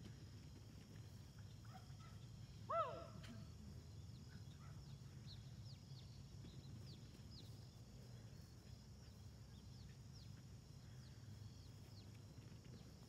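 Quiet open-air ambience: a steady low hum, with small birds chirping faintly throughout. One short, louder cry stands out about three seconds in.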